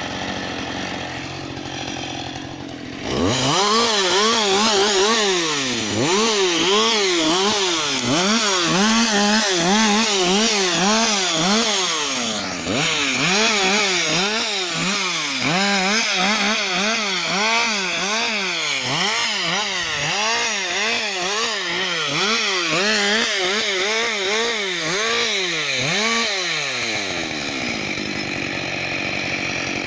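Husqvarna 560XP two-stroke chainsaw idling, then from about three seconds in revved up and down over and over while limbing a felled conifer, each branch cut a quick rise and fall in engine pitch. It drops back to idle near the end.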